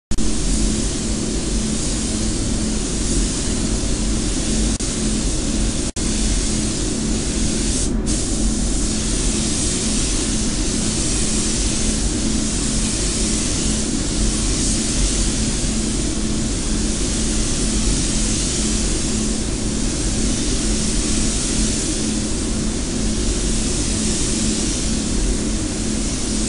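Spray gun hissing as compressed air atomises paint while a car's front wing is given its second, finishing coat; the hiss swells and fades with each pass and briefly drops out about eight seconds in. The paint booth's steady ventilation hum runs underneath.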